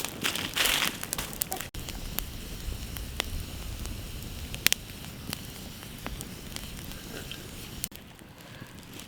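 A campfire burning, crackling with scattered sharp pops over a low, steady rumble. Rustling and crinkling handling sounds come first, for about the first second and a half.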